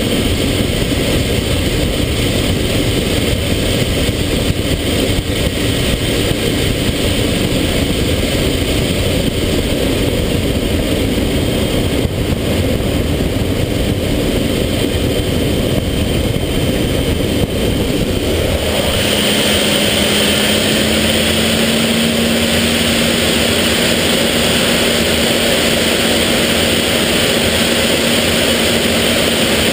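BAC Jet Provost's Viper turbojet and the rushing airflow heard inside the cockpit, a loud steady noise. About two-thirds of the way through the sound changes abruptly: the deep rumble drops away and a steady hum and higher whine take over.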